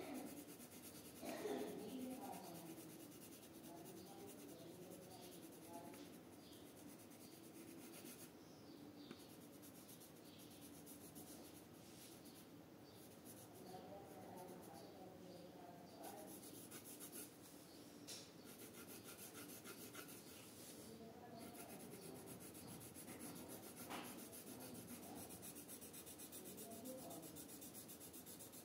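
Red coloured pencil shading back and forth on paper: a faint, steady scratching of pencil lead rubbing the sheet.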